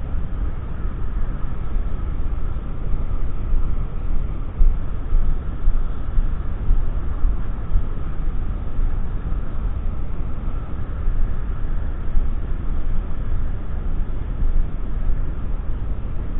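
Steady low rumbling wind buffeting on an action camera's microphone, with no distinct events.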